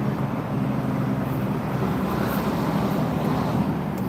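A steady low engine hum with a constant rumble beneath it, unchanging throughout.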